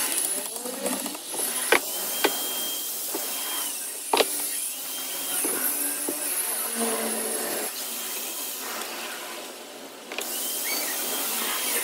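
Sharp metal taps and clinks as a small hammer knocks shift rails into a truck manual transmission case during reassembly, a few separate strikes in the first half. A faint high tone comes and goes several times underneath.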